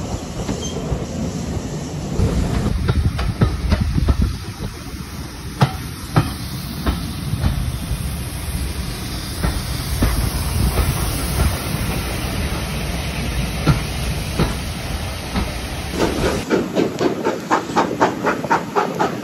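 Steam-hauled train on the move: low rumble of passing coaches, with wheels clicking over rail joints and the hiss of a Great Western steam locomotive going by. Near the end, the locomotive's exhaust beat is heard from a carriage behind, a steady chuffing of about three to four beats a second.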